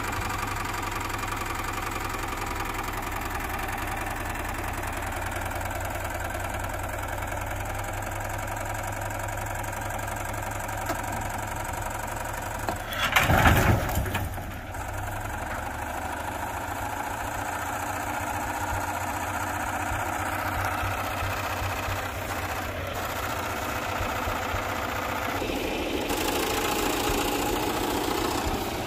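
A motor vehicle's engine running steadily, with a short loud burst of noise about halfway through and a slightly louder stretch near the end.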